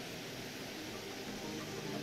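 Steady hiss of background noise, with faint music starting to come in near the end.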